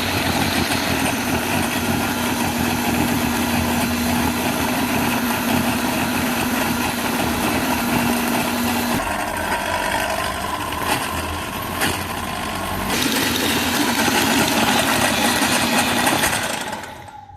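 Small engine of a Tsuzumi construction machine running steadily, its note changing about halfway through and again a few seconds later, then dying away near the end.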